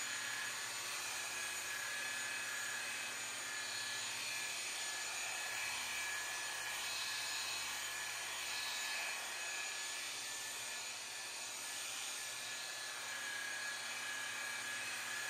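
Corded rotary polisher spinning a foam buffing pad against a freshly clear-coated painted steel panel: a steady high motor whine over the rush of the pad, buffing the clear coat to a gloss.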